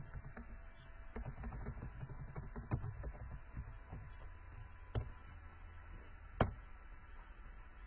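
Typing on a computer keyboard while entering a web address: a quick run of soft key presses over the first three seconds, then two sharper, louder clicks about five and six and a half seconds in.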